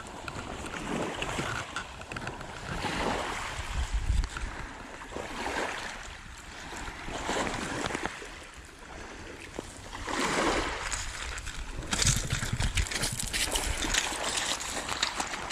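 Shallow surf washing at the water's edge, the wash swelling and fading every two to three seconds, with some wind on the microphone. From about three-quarters of the way through, sharp splashing of water close by.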